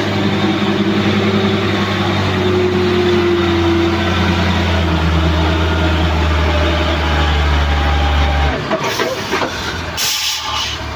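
Heavy vehicle's diesel engine running steadily under load at low revs, its note cutting off suddenly about eight and a half seconds in. About a second later comes a sharp hiss of compressed air from the air brakes.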